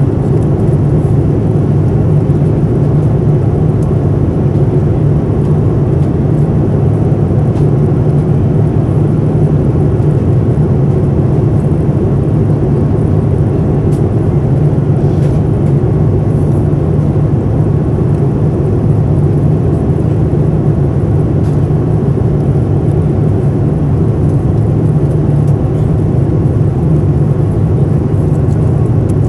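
Steady cabin noise of a Boeing 787-9 at cruise altitude: an unbroken rush of airflow and engine sound, heaviest in the low range, holding at a constant level.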